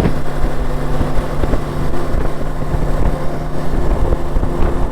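BMW G 310 GS single-cylinder engine running steadily at highway cruising speed, with a low wind rumble on the microphone.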